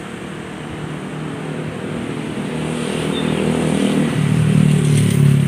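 A motor vehicle's engine running, growing steadily louder as it approaches and loudest near the end.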